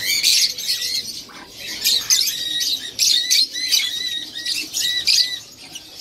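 Parrots calling: a run of short, shrill squawks and chirps, several a second, with a brief lull about a second and a half in and another near the end.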